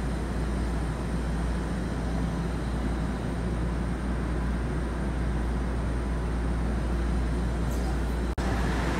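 Toronto subway train running, heard from inside the car: a steady low rumble of wheels and motors. It drops out for an instant near the end.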